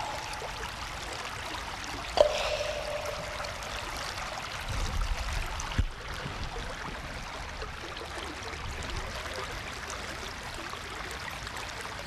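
Water splashing and running over rocks, a steady rushing hiss. A sudden splash with a short ringing plop comes about two seconds in, and a short knock near six seconds.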